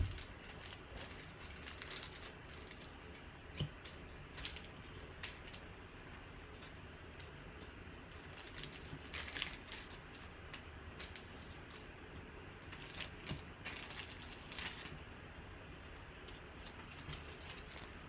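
Trading cards and pack wrappers being handled: faint, irregular small clicks, flicks and crinkles, a few bunched together, over a low steady room hiss.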